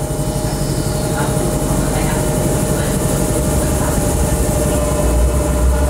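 Milan Metro Line 3 train running through the tunnel, heard from inside the car: a steady rumble of wheels and motors with a constant whine, growing gradually louder, the deep rumble swelling near the end.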